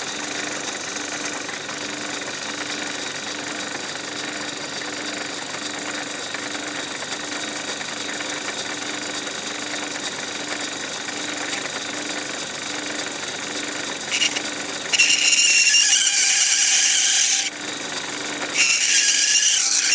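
Small metal-working lathe running steadily with a faint regular pulse. About fifteen seconds in, a cutting tool cuts into the spinning plastic chimney blank with a loud, high-pitched squeal, stops for about a second, then cuts again near the end.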